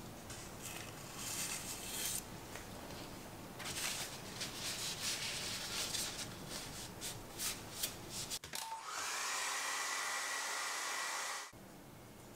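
Scattered clicks and rustling of things being handled, then a hair dryer switched on near the end, its motor tone rising as it spins up, blowing steadily for about three seconds before cutting off suddenly.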